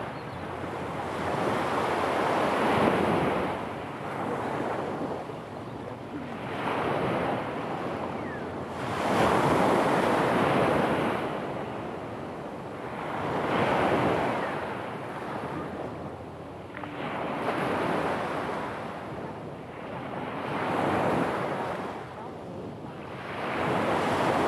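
Small sea waves breaking and washing up a pebble beach, the surf swelling and fading about every three to four seconds.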